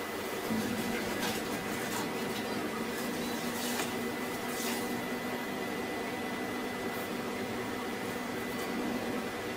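A steady background hum runs under a few short clicks and rattles as quick-release bar clamps are slid onto plywood and squeezed tight.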